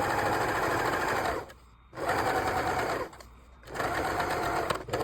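Serger (overlock sewing machine) running at speed, stitching and trimming a fabric edge with its built-in knife, in three runs of a second or more each with short pauses between.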